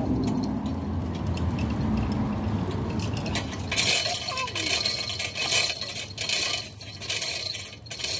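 Steel chain of a hand chain hoist clinking and rattling as it is pulled by hand to lift a rose bush out of the ground. The clinks come in irregular clusters from about three and a half seconds in, after a low rumble.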